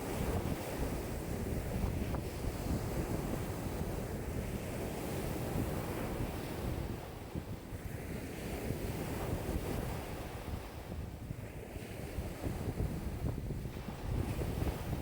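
Wind-driven lake waves washing and breaking on the shore in a strong wind of about 5 m/s, with wind buffeting the microphone. The rush swells and eases in waves every few seconds.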